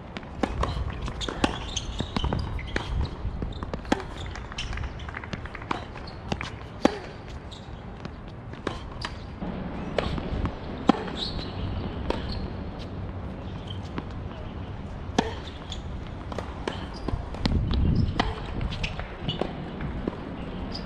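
Tennis ball being struck by rackets and bouncing on a hard court during play: sharp pops every second or two, over a steady low rumble.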